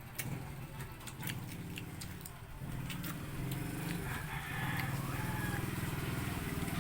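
A small engine running steadily, growing louder about halfway through, with scattered sharp clicks of chewing over it.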